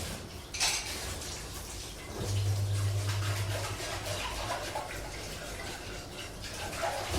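Dishes and cutlery clinking and clattering while being washed by hand, with water running and splashing. A low, steady washing-machine hum comes in about two seconds in and drops out a couple of seconds later.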